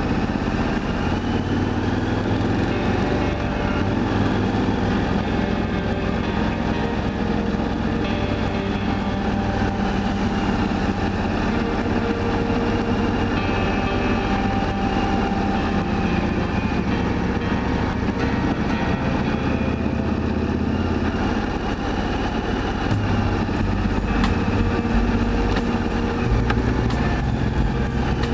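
KTM 1290 Super Adventure's V-twin engine running through an Akrapovic exhaust, heard from on board while riding. The engine note rises and falls gently with the throttle.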